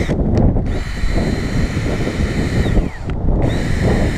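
Drill-driven buffing tool running at speed with a steady high whine. It is let off twice, just after the start and about three seconds in, its whine sinking as it spins down, then spinning back up. Heavy wind rumble on the microphone throughout.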